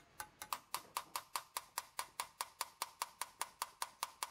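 Small hammer tapping a steel engraving chisel into a copper plate in quick, even strokes, about five a second, each with a short metallic ring. This is sukuibori, scoop engraving that cuts the lines of the pattern deeper and wider.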